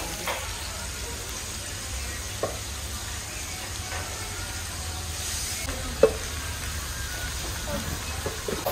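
Glazed clay tagine lids clinking against their earthenware bases as they are lifted and set down: a few separate knocks, the loudest about six seconds in, and a quick run of them near the end. Underneath is a steady hiss from the tagines cooking over charcoal braziers.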